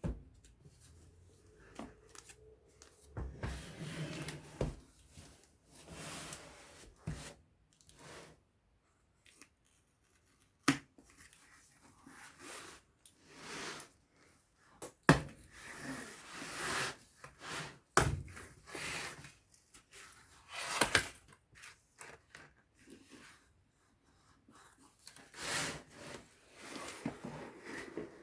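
Handling and unpacking noises of a small laptop: irregular rustling of packaging, with a few sharp clicks and knocks.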